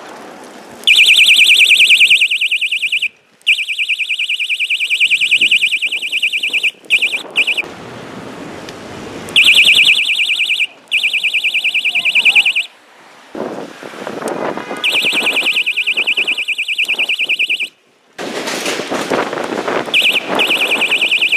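SD-603 electronic bicycle horn sounding in about five bursts of one to four seconds each, starting when its button is pressed and stopping when it is released. It is a loud, high-pitched, rapidly pulsing electronic alarm tone.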